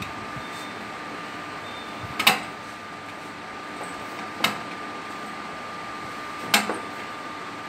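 A screwdriver working the screw of a fuse-holder panel cover, with three sharp clicks about two seconds apart. Under them runs a steady hum with a thin high tone.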